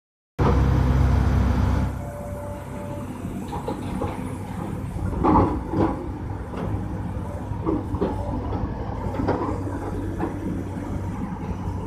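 Crawler excavator's diesel engine running, loud for the first second and a half and then quieter and steady, with irregular knocks and scrapes as the bucket digs into the trench soil; the loudest knock comes about five seconds in.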